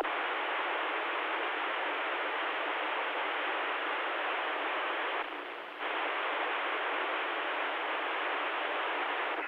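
CB radio receiver hiss from the radio's speaker: a steady rush of static with nobody transmitting, dropping away briefly about five seconds in.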